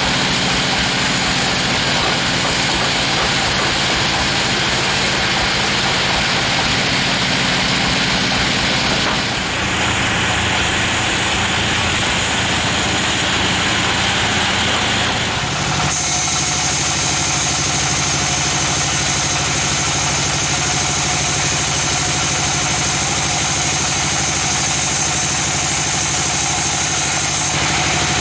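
An engine running steadily at a constant speed. Its sound changes abruptly twice, about a third of the way in and again just past the middle.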